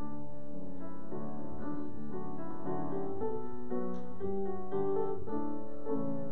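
Piano playing a slow introduction of sustained chords, beginning abruptly at the start and moving to a new chord about twice a second: the lead-in to the sung responsorial psalm after the first reading.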